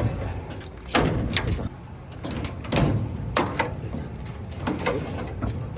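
Steel drawers of a fire- and water-damaged Snap-On tool box being worked off their slides: metal scraping with several sharp knocks and clunks.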